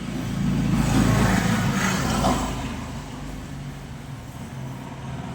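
A motor vehicle's engine running, swelling to its loudest in the first two or three seconds and then fading.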